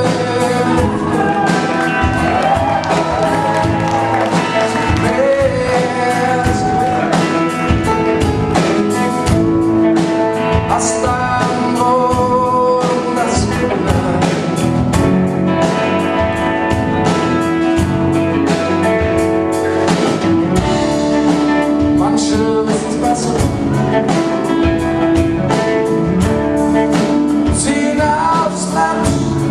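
Live rock band playing: acoustic guitars over a steady drum beat, with a male voice singing.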